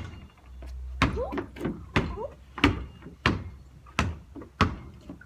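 A basketball being dribbled, bouncing hard on the floor about once every two-thirds of a second in a steady rhythm.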